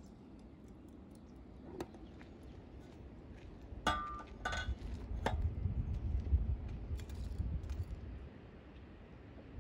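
Metal clinks of a samovar's chimney pipe being handled and set on its top: a light click, then about four seconds in two sharp ringing clinks half a second apart, followed by a few lighter knocks.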